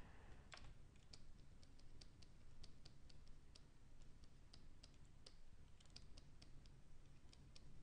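Faint, irregular clicking of computer keys, about four a second, over a low steady hum.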